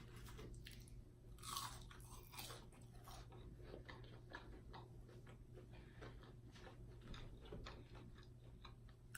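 A person chewing and crunching fried food close to the microphone: many small, crisp crunches at an uneven pace, a little louder about one and a half to two and a half seconds in.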